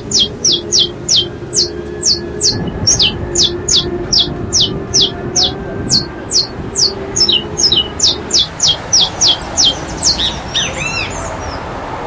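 A small bird calling a long run of high, thin falling notes, about two and a half a second, that stops near the end and gives way to a few short chirps.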